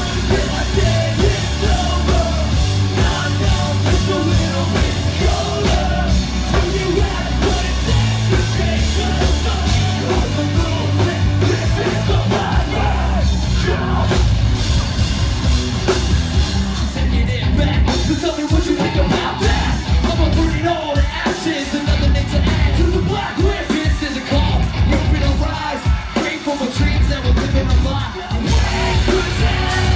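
Live heavy rock band playing loud, with electric guitars, drums and sung and shouted vocals, heard through a phone microphone in the crowd. In the second half the low end repeatedly stops and comes back in stop-start hits.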